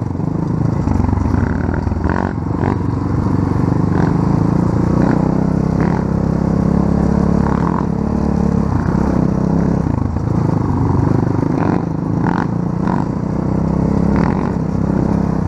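Small off-road vehicle engine running under throttle while riding, its note easing off and picking up again a few times, with scattered rattles and knocks from the rough ground.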